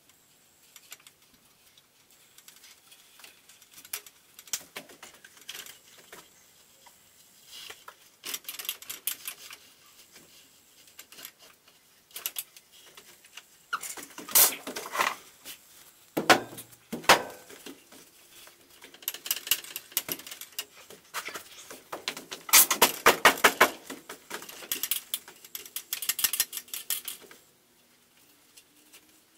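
Bursts of rapid metallic clicking and rattling from tools and metal parts being worked by hand, with a few sharper knocks about halfway through and a long run of fast clicks near the end.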